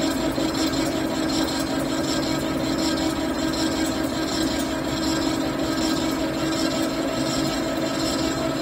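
CNC machine running steadily: a constant hum on a few held pitches over a rushing noise, with no breaks.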